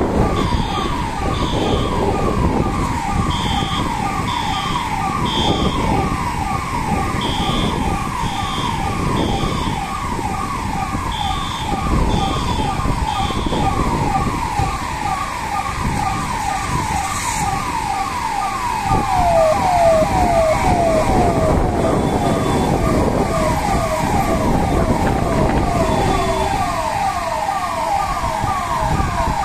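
Electronic siren sounding a fast yelp: its pitch falls in about three quick sweeps a second, over a steady rushing noise. A high beeping in short pulses sounds through the first half.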